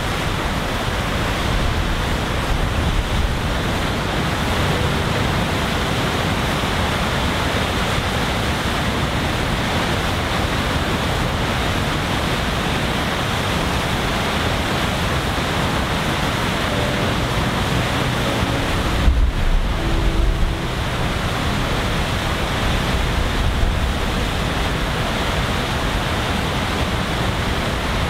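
Steady rushing noise of a large waterfall's falling water, with wind buffeting the microphone.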